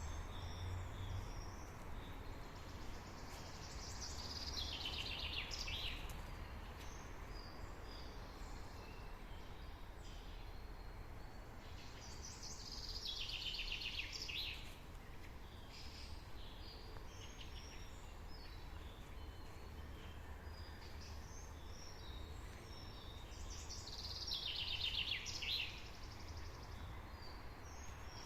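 Forest birdsong: a songbird sings the same descending song phrase three times, about ten seconds apart, with fainter chirps of other birds between, over a steady low rumble.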